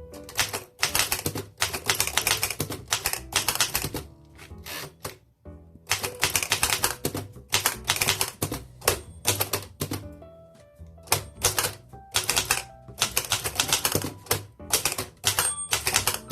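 1926 Remington Portable No. 2 typewriter being typed on: quick runs of sharp, high-pitched, loud typebar strikes, broken by short pauses. Soft background music runs underneath.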